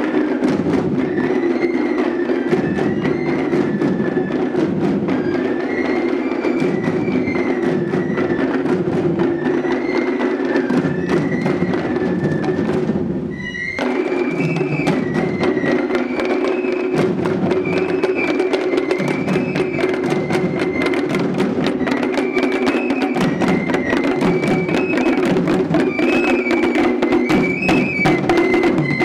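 Traditional Sri Lankan procession music: small hand cymbals and drums keep a fast, busy beat under a high, wavering wind-instrument melody. The music breaks off briefly just under halfway and picks up again.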